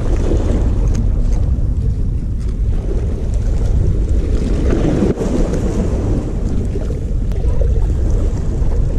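Steady wind buffeting the microphone, with small waves washing against shoreline rocks beneath it.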